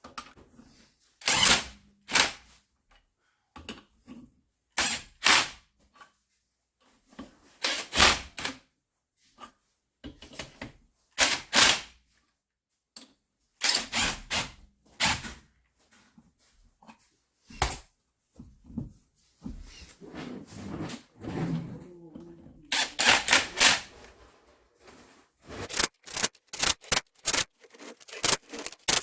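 Irregular sharp clicks and knocks in clusters, with a run of quicker clicks near the end: tools and parts being handled and set down during reassembly under a car's hood.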